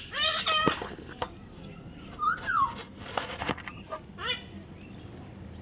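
Parrot calling: a burst of harsh squawks at the start, a whistled call that rises and falls about two seconds in, and another short squawk about four seconds in, with a few sharp clicks between.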